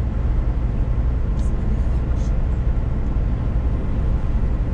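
Scania S500 truck cruising at highway speed, heard from inside the cab: a steady low drone of engine and tyre noise on a wet road.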